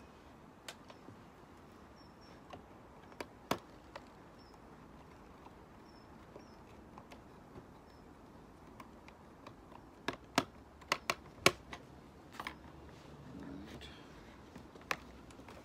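Scattered small clicks and taps of wires and a screwdriver being worked into a solar charge controller's terminals, sparse at first, with a quick run of sharper clicks about ten to twelve seconds in.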